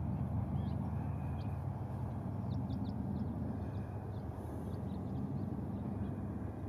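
Low, steady rumble of a slow convoy of cars, trucks and motorcycles rolling toward the listener, with a scattering of short, high chirps over it.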